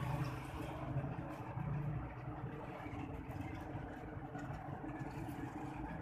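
A steady low hum like an idling engine, with a few louder low swells in the first two seconds.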